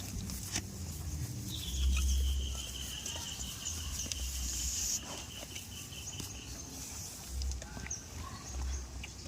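Outdoor ambience: a steady high buzz that stops about five seconds in, a thin high tone held for about five seconds, low rumbling and scattered small ticks.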